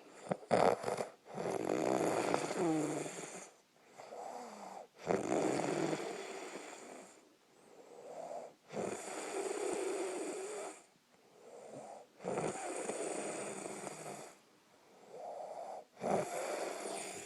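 A man snoring loudly in his sleep, a loud snore starting on each breath about every three to four seconds.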